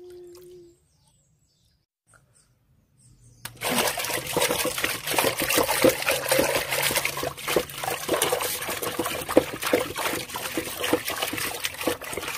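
Water splashing hard and continuously, a dense run of quick splashes that starts suddenly a few seconds in after a silence.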